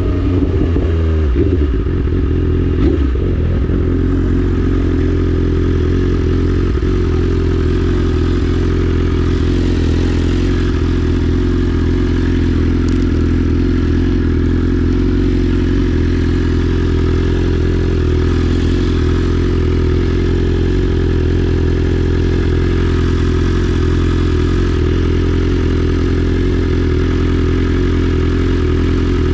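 A 2024 BMW S1000RR's inline-four engine running loud through an Akrapovic full exhaust system. The pitch shifts briefly in the first few seconds, then the engine holds a steady idle.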